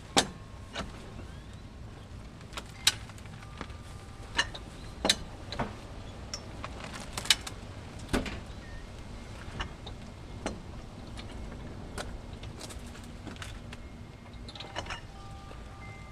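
Hi-Lift farm jack and its metal fittings clanking and rattling as it is set up and worked, in irregular sharp metal knocks, some ringing briefly.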